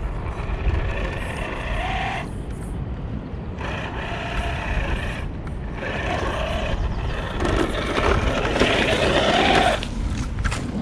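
Electric motor and gearbox of a 1/10-scale RC crawler whining in bursts as the throttle is pulsed on and off, revving harder with rising pitch in the last few seconds as the truck pushes into thick mud. Wind rumble on the microphone underneath.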